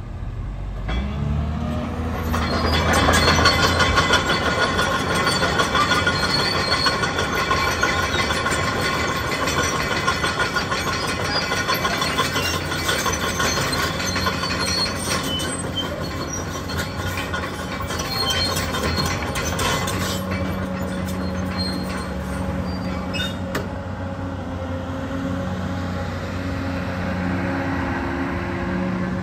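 Hyundai R360LC-7A crawler excavator working, its diesel engine running with a pitch that rises in the first couple of seconds. Many metal clanks and high squeals run through the first twenty seconds, then a steadier hum of engine and hydraulics.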